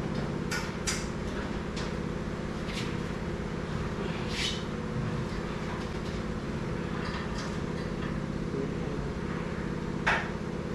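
A steady low mechanical hum, with scattered knocks and clicks as metal parts of a newly unboxed machine are handled; the sharpest knock comes near the end.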